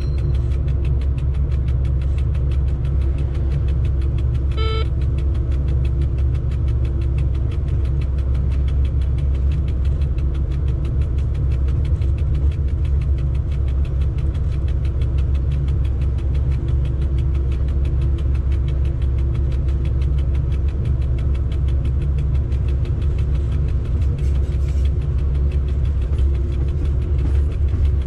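Steady low rumble and hum inside an electric freight locomotive's cab as it rolls slowly, with a short beep about five seconds in.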